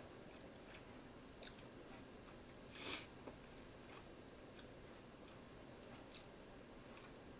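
Near silence: quiet room tone with a few faint clicks and one brief soft hiss about three seconds in.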